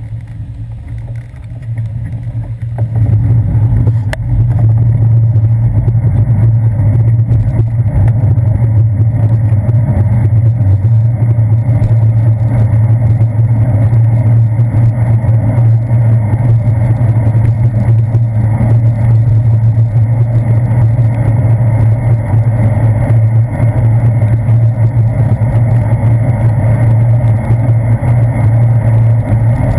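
Steady, muffled rumble of wind and road vibration on a handlebar-mounted GoPro Hero 2 as a bicycle rides along a wet street. It is quieter at first and grows louder about three seconds in as the bike gets moving.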